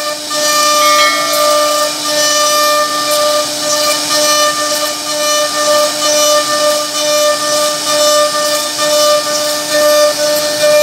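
CNC router spindle running at speed while its bit mills a relief carving into a wooden panel: a steady high whine over the hiss of cutting, wavering a little in loudness as the bit moves through the wood.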